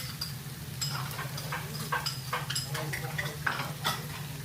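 Beef sizzling on a tabletop grill, with scattered clicks and clinks of tongs and dishes over a steady low hum.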